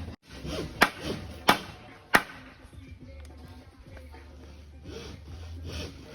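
Three sharp knocks, about two-thirds of a second apart, from work on a beam under construction, followed by faint scraping and rubbing.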